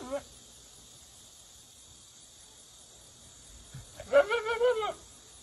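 Goat bleating: the tail of one call at the very start, then one wavering bleat about four seconds in, lasting about a second.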